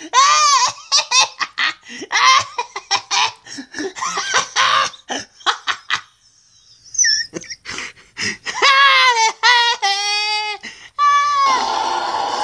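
Young child laughing in short high-pitched bursts, then a few long high squeals; music starts near the end.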